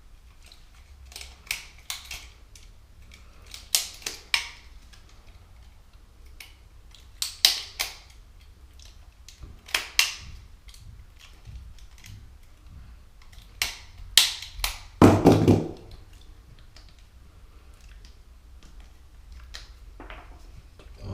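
Irregular sharp clicks and snaps of the plastic being worked as square holes are notched out of a shower drain part. There is a louder, longer crunch about two-thirds of the way through.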